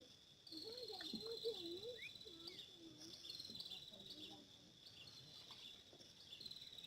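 Insects, likely crickets, chirring with a steady high buzz, joined every few seconds by a high trill that slides slightly down in pitch.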